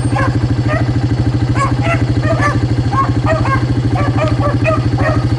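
Several beagles baying on a rabbit's track, short overlapping barks and bawls, over a small engine running steadily close by with an even, fast pulse.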